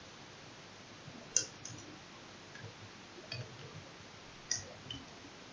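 Computer keyboard keys pressed slowly: about six single key clicks spaced irregularly, some a fraction of a second apart and some over a second apart, over a faint steady hiss.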